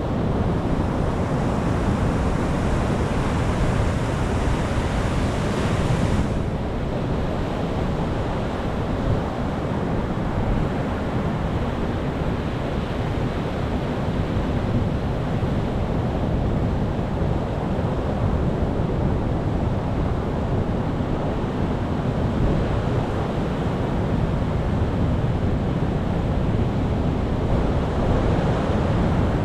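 Sea waves breaking and washing ashore, a continuous rush of surf. The higher hiss drops away abruptly about six seconds in.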